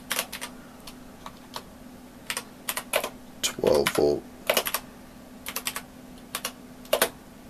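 Typing on a computer keyboard: short runs of sharp key clicks with pauses between them.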